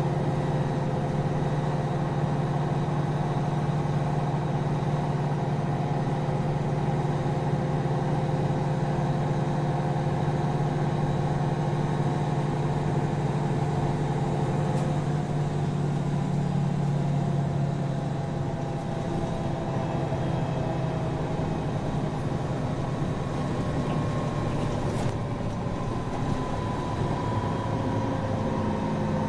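Mercedes-Benz Citaro city bus under way, heard from inside the passenger cabin: a steady engine and drivetrain hum with road noise. Near the end a fainter whine slowly shifts in pitch as the bus changes speed.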